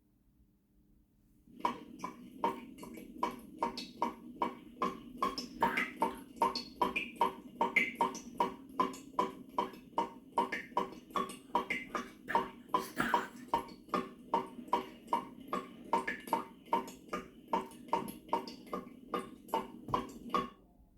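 Water dripping from a tap into a bowl of water: a steady run of short, ringing plinks, about two drops a second, starting about a second and a half in.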